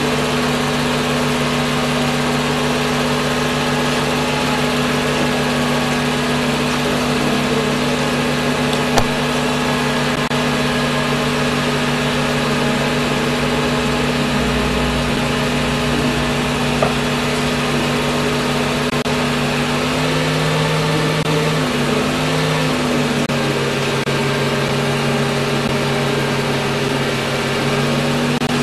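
Film projector running: a steady motor hum and whir over a hiss. Its pitch wavers for a couple of seconds a little over twenty seconds in, and two short clicks stand out, about nine and seventeen seconds in.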